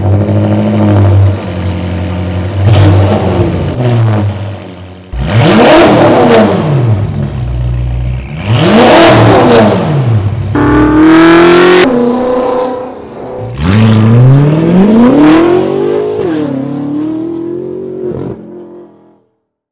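BMW F10 M5's twin-turbo V8 through an Eisenmann Race quad-tip exhaust: it fires up and idles, then is revved sharply twice, each rev rising and falling quickly. After a sudden cut it revs hard again, rising and then dropping away, and the sound fades out near the end.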